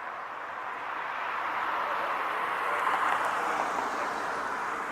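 A car passing by: a rush of tyre and road noise that swells to its loudest about three seconds in, then fades.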